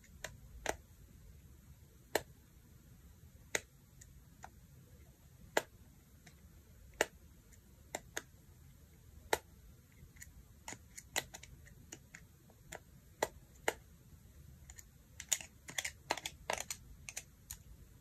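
Sharp plastic clicks, irregular and about one a second, with a quick run of them near the end: a BlackBerry Q10's snap-fit housing clips letting go as the casing is pried apart by hand.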